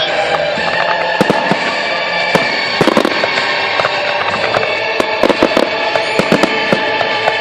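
Fireworks bursting and crackling in quick, irregular bangs over steady music playing along with the display.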